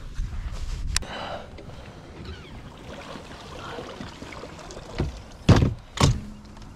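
Knocks and thumps on a fishing boat: a sharp knock about a second in, then a run of heavy thumps near the end, the two loudest half a second apart, over light wind noise.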